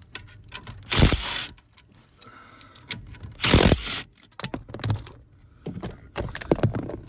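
Hand-tool work on the truck's metal dash bracket: a socket wrench ratcheting in short bursts, with scraping and separate clicks of metal on metal between them.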